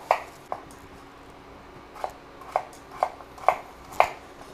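Kitchen knife chopping raw peeled potato on a wooden cutting board: about seven sharp chops, two near the start, then after a pause five more at about two a second.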